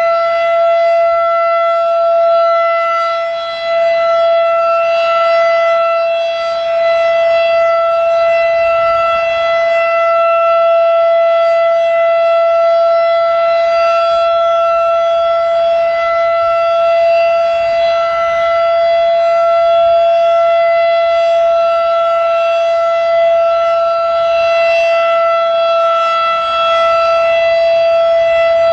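Federal Electric Model 5 mechanical outdoor warning siren sounding a steady full alert, loud and holding one pitch with a stack of overtones above it.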